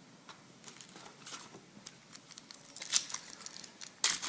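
Trading cards and a pack wrapper being handled: scattered light rustles and clicks, growing into a sharper crinkling near the end.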